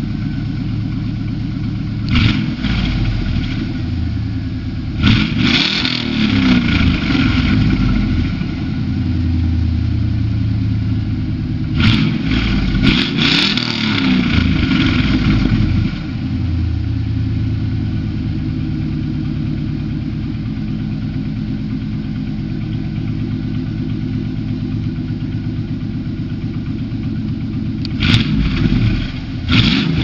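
Ford Explorer's engine exhaling through a Spintech 2.5-inch X-pipe and dual Spintech Super Pro Street mufflers. It idles steadily and is revved up and let fall back to idle several times: a short rev, two longer ones, then a couple of quick blips near the end.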